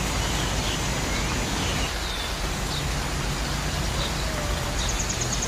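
Steady outdoor background noise with a few faint, short bird chirps, and a quick high trill near the end.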